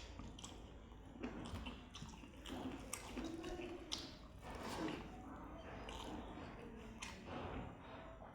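Close-miked wet chewing and squishing of a person eating, with irregular smacks and clicks of food in the mouth.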